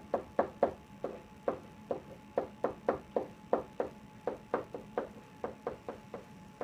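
A pen tapping and knocking against an interactive whiteboard while words are handwritten on it: an uneven run of short, sharp taps, about three or four a second, one for each stroke of the letters.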